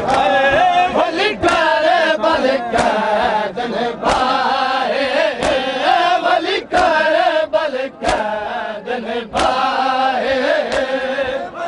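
A noha lament chanted by a group of Shia mourners, with the crowd's hands striking their chests together in time (matam), one sharp slap about every 1.3 seconds.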